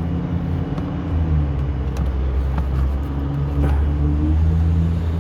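A motor vehicle's engine running with a steady low hum whose pitch shifts slightly a couple of times, with a few faint clicks of plastic parts being fitted.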